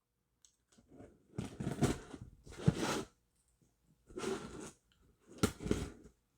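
A shipping package being cut open with a knife: scraping and tearing of packing tape and cardboard in several short bursts.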